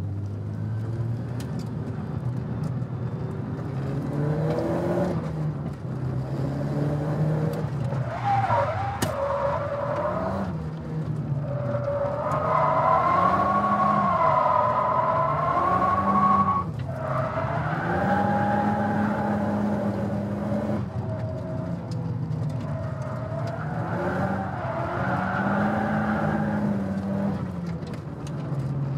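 1999 Nissan Silvia S15 Spec R's turbocharged SR20DET four-cylinder engine heard from inside the cabin, revving up and down through a drift. Tyres squeal in wavering stretches, longest and loudest about halfway through, where the squeal cuts off suddenly.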